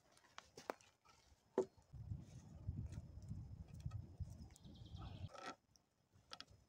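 Wooden poles knocking and clicking as they are handled and lashed together with cord, with a sharp knock about a second and a half in and a low rumble through the middle.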